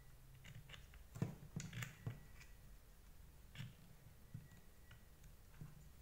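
Faint clicks and taps of hard plastic parts handled by hand: the white drive gear being worked into the Deerma VC25 vacuum's brush-head housing. A quick cluster of clicks comes about a second in, then a few single ones spread out.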